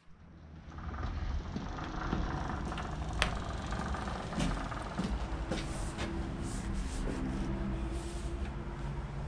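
Four-stroke dirt bike engine idling, a steady low rumble that fades in over the first second, with a few sharp clicks and knocks along the way.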